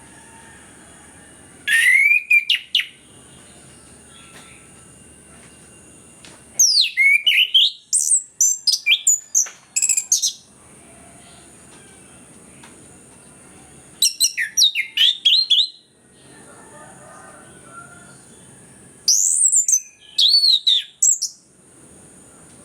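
Orange-headed thrush (anis kembang) singing: four loud bursts of fast, varied sweeping notes, separated by pauses of a few seconds, the second burst the longest.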